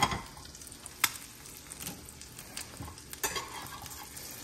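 Egg frying in browned butter in a small uncoated stainless-steel frying pan, sizzling steadily. A few sharp scrapes and taps come from a metal spatula against the pan as it works at an egg stuck to the bottom.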